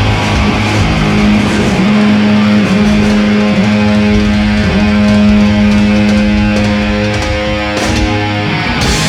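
Live heavy metal band holding the long final chord of a big ending: distorted electric guitars and bass sustained, with a few drum and cymbal hits near the end.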